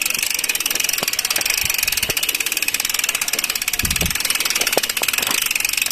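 Bicycle rear freewheel clicking rapidly and steadily as the bike is pushed uphill, with a dull thump about four seconds in.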